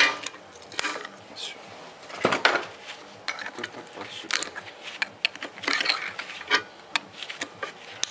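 A steel screwdriver scraping and clinking inside the bore of a steel front wheel hub, prying out broken bits from the bearing seat, in irregular metallic clicks and short scrapes. The loudest clusters come a little after two seconds and near six seconds.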